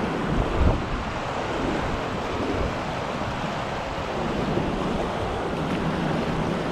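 Turbulent river water rushing and churning around a raft in the tail of a class IV rapid, with wind buffeting the microphone. There is a brief low thump under a second in.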